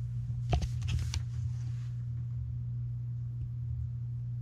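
A few clicks and knocks of the camera being handled as it is reached for and stopped, about half a second to a second in, then only a steady low hum.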